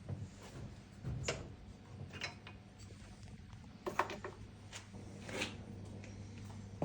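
Light, scattered clicks and knocks of metal parts as a pump's water seal is pushed down over the shaft with a mandrel, about six in all, over a faint steady low hum.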